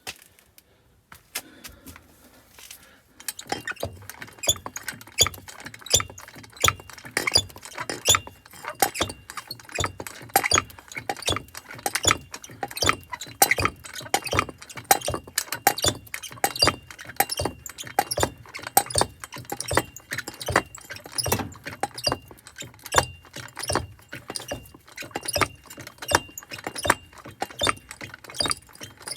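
Irregular metallic clicking and clinking, a few clicks a second, starting about three seconds in, over a faint steady high whine.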